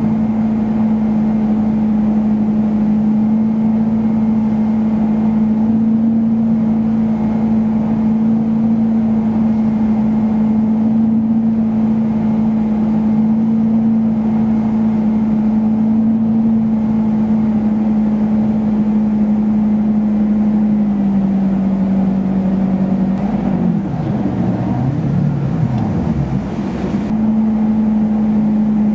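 Inboard ski boat engine running under way at a steady cruising pitch, heard from the helm. Near the end its note drops and wavers for a few seconds as the throttle eases, then picks back up to the same steady pitch.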